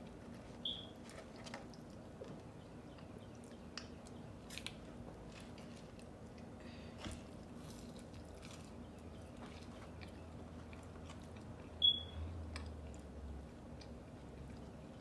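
Close-up eating sounds of fast food: soft chewing with scattered small crunches and mouth clicks. A short high squeak sounds near the start and again, louder, about twelve seconds in.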